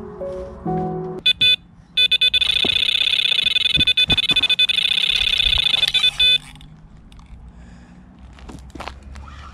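Electronic carp bite alarm sounding a run: two short bleeps, then a fast continuous stream of high bleeps for about four seconds as a fish takes line. Soft background music ends about a second in.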